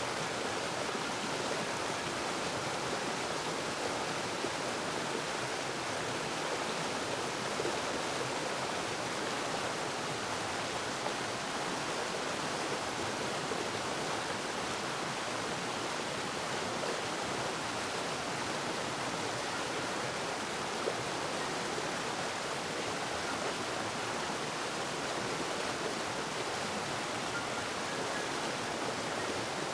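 Flowing water from a stream or small waterfall, a steady, even rushing with no breaks.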